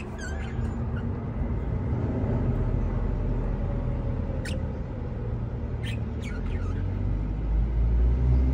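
Budgerigars giving a few short, high chirps that fall in pitch: some at the start, one midway and a quick run about six seconds in. They sit over a steady low rumble that grows louder near the end.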